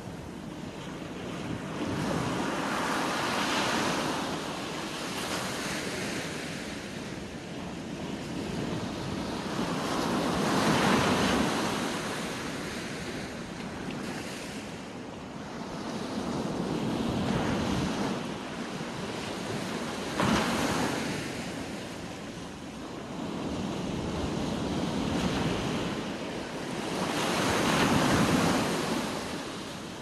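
Small sea waves breaking and washing up the shore, the surf swelling and fading in slow surges every several seconds.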